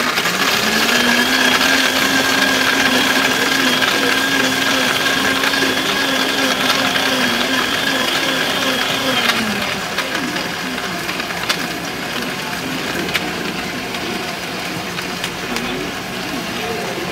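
Countertop blender puréeing watermelon chunks into juice. The motor spins up to a steady whine, runs for about nine seconds, then winds down and stops.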